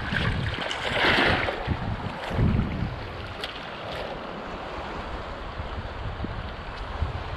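Shallow sea water lapping and sloshing close by, with wind rumbling on the microphone; the water noise swells about a second in.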